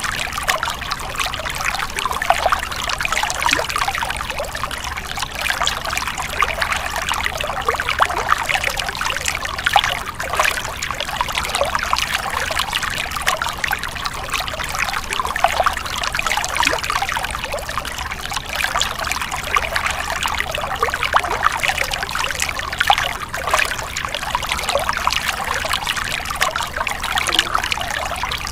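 Small stream running over stones, a steady trickling and splashing of water.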